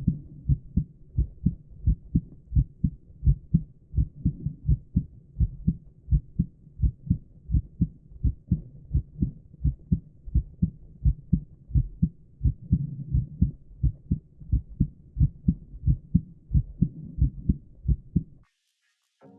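Man's heartbeat heard through a stethoscope: a steady run of paired lub-dub thumps. The sound cuts off sharply about a second before the end.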